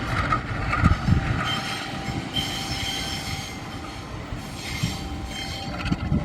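Train rolling through the station, its steel wheels squealing on the rails in high thin tones over a low rumble, with a couple of heavy knocks from the wheels.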